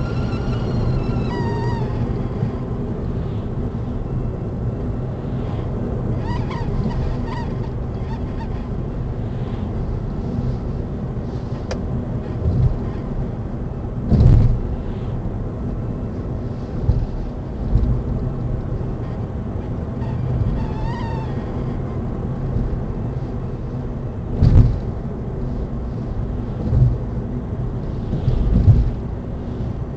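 Smart EQ 453 electric car with a steady low rumble, broken by irregular dull thumps, mostly in the second half, and a few brief wavering high-pitched squeaks.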